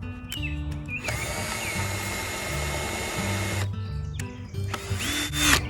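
Electric drill running: one burst of about two and a half seconds with a steady whine, then a shorter burst near the end that rises in pitch, boring a small pilot hole for a screw.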